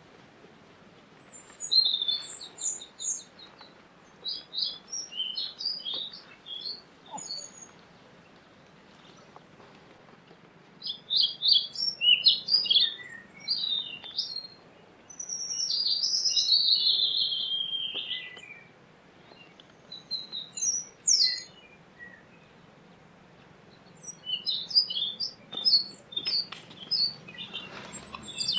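High-pitched chirping calls in quick bursts, with one longer falling call about halfway through.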